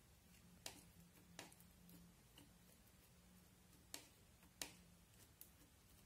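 Quiet sticky clicks and pops of clear slime being stirred and pressed with a small plastic spatula: a few scattered sharp clicks, four of them louder than the rest.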